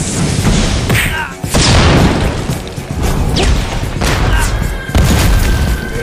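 Cartoon fight sound effects: repeated heavy booms and magic energy-blast impacts with short swooping whooshes, layered over music.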